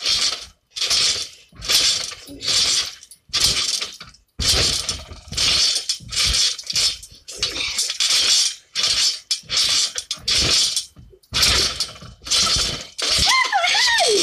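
Trampoline springs and frame jangling and creaking in a burst with each bounce, in a steady repeating rhythm.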